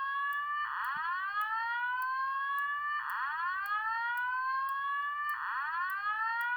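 Simplex voice-evacuation fire alarm speaker sounding a slow whoop: a tone that rises steadily in pitch, repeating about every two and a third seconds, with faint ticks about twice a second.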